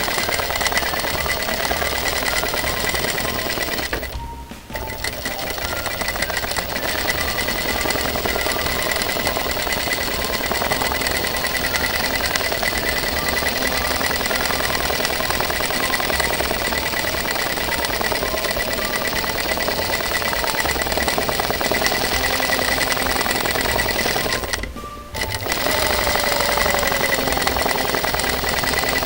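Sewing machine running steadily at speed for free-motion quilting, the needle stitching through a padded quilt layer. It stops briefly twice, about four seconds in and again a few seconds before the end.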